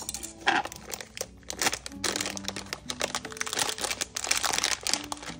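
A foil-laminated food pouch crinkling and crackling as it is picked up and handled.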